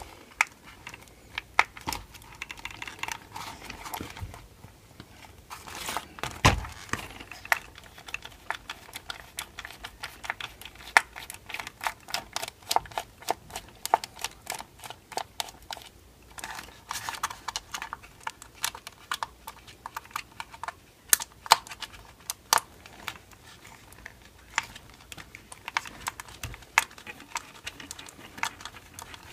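A precision screwdriver working tight screws out of a Traxxas Stampede 4x4 VXL RC truck, with many small irregular clicks and ticks of the driver and parts being handled, and one louder knock about six seconds in.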